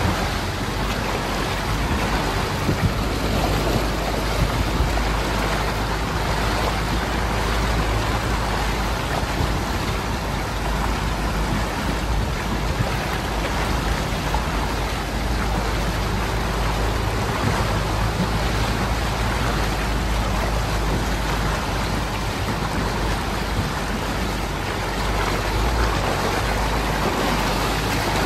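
Toyota Hilux wading through a deep flooded creek crossing: a steady rush of water as the bow wave splashes along the front and sides, over the vehicle's low rumble.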